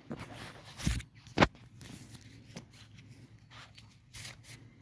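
Phone handling noise as the phone is passed from one hand to the other: rustling against the hand and clothing, with two sharp knocks about a second in.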